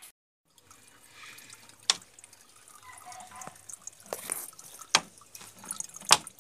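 Water dripping and trickling in a homemade PET-bottle air pump for a fish tank, with three sharp drips about two, five and six seconds in, the last the loudest.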